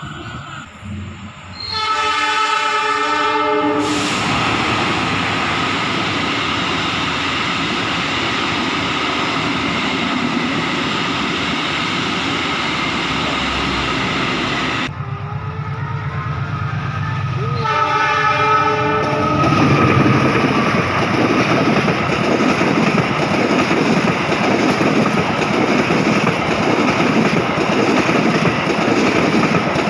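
Diesel locomotive horn sounding a blast of about two seconds, followed by the train running past with wheels clattering over the rails. After an abrupt cut about halfway through, another horn blast of about two seconds and another train passing, louder.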